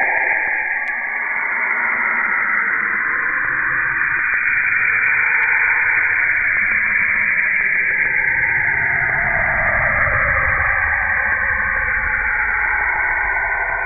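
Spacecraft radio and plasma-wave data converted to sound: a steady static-like hiss with bands of noise that slowly glide down in pitch and then rise again near the end.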